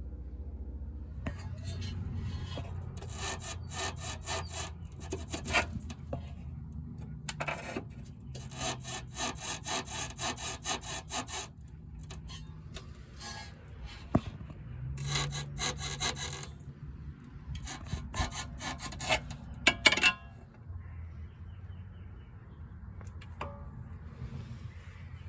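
The front suspension of a 2014–2019 Toyota Corolla creaking, a dry rubbing creak that comes in repeated bursts of one to several seconds over a low steady rumble. This is the suspension noise fault that the repair is meant to cure.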